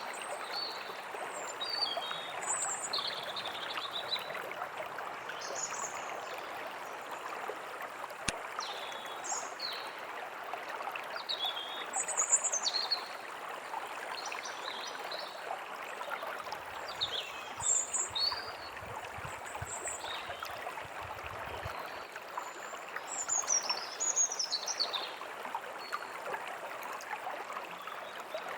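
A small stream flowing steadily while several songbirds chirp and trill in short, high phrases throughout. A faint low rumble comes in for a few seconds after the middle.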